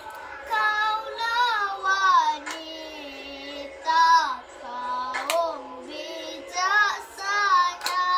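A child singing a dikir barat chant in long held phrases whose pitch bends up and down, with several sharp hand claps between the lines.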